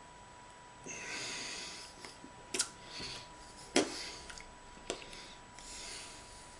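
A person's breathing and nasal snorts: several hissy breaths, with three sharp clicks or taps about two and a half, four and five seconds in, the middle one the loudest.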